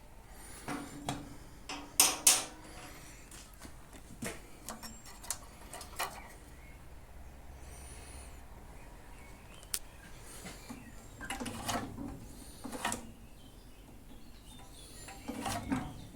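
Scattered metallic clinks, clicks and knocks of tools and small-engine parts being handled on a push mower, with a louder clatter about two seconds in and more clusters near the end.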